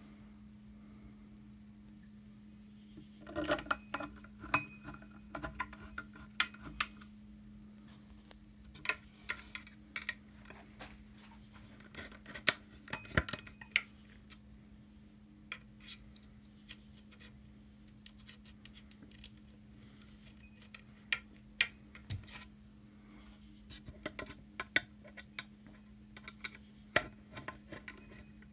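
Small metal parts and hand tools clinking and clicking irregularly as a ceiling fan is put together, over a steady low hum.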